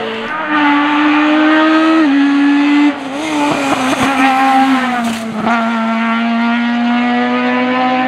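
Honda Civic race car's four-cylinder engine at high revs, driven flat out uphill past the listener. The pitch steps down with a quick upshift about two seconds in, goes uneven as the car passes close by, then holds steady as it pulls away.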